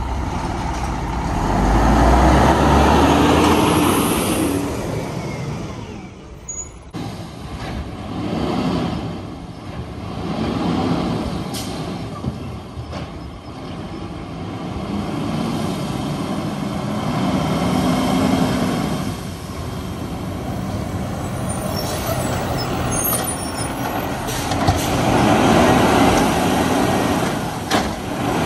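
Diesel garbage truck engine revving, rising and falling in repeated swells every couple of seconds.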